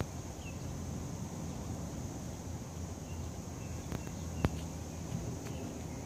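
Outdoor summer ambience: a steady high drone of insects, with a few short bird chirps and a low rumble beneath. A single sharp click about four and a half seconds in.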